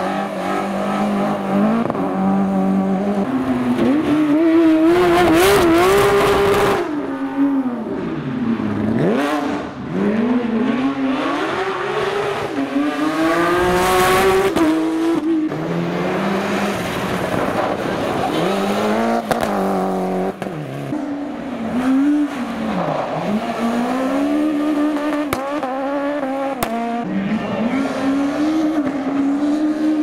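Several rally and rallycross cars in turn, among them a Porsche 997 GT3 and a Citroën Saxo, their engines revving hard and dropping back again and again through gear changes and slides, with tyre squeal. Loud rushes of noise come about five to seven seconds in and again around fourteen seconds.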